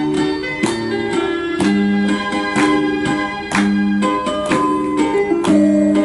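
Ocarina ensemble playing a lively encore tune over accompaniment, with a steady beat about once a second.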